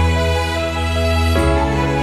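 Background music: slow, sustained chords with a soft melody on top, changing chord about a second and a half in.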